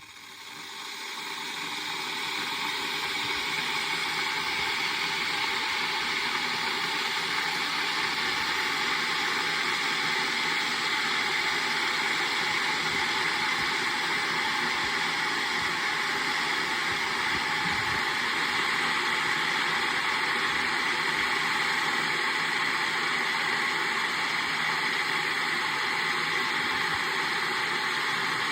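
Kettle boiling: a steady rushing hiss of water on the boil that swells up over the first couple of seconds and then holds steady.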